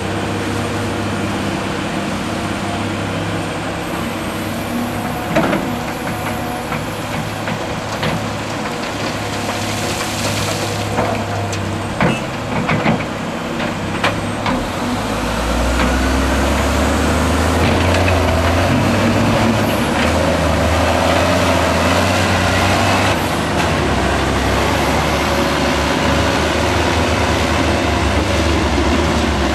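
Diesel engines of a Caterpillar 345B L excavator and a Caterpillar 740 articulated dump truck running while a bucket of dirt is dumped into the truck's body, with several sharp knocks and clatter in the first half. About halfway through, the truck's engine grows louder and deeper as the loaded truck pulls away, and its pitch shifts as it drives off.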